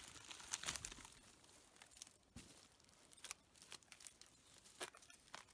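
Faint, scattered crackling and crunching of dry forest litter and dead wood as a log is picked up from a pile and leaned against a lean-to's ridge pole, with a few light knocks.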